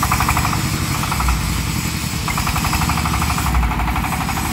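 Engine of a small open vehicle carrying a mobile bandsaw rig, chugging in a rapid, even knock as the vehicle drives off.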